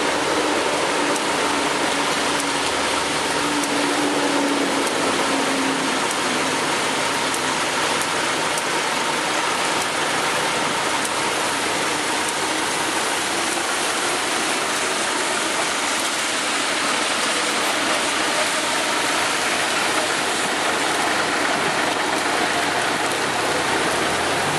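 Heavy rain pouring steadily onto a city street and pavement, a dense unbroken hiss of water with no let-up.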